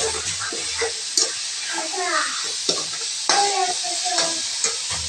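Spatula scraping and stirring vegetables around a metal kadhai as they stir-fry in hot oil, which sizzles steadily underneath.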